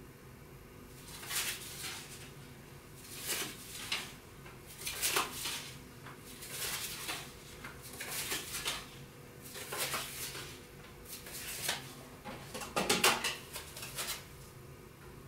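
Playing cards rustling and clicking in short bursts every second or two as they are slid off a hand-held stack and set in place.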